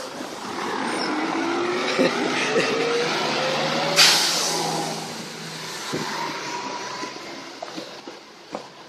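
A passing double-decker bus: its engine note rises as it pulls away, then about four seconds in comes a sudden loud hiss of compressed air that fades over a second or so, against general street traffic.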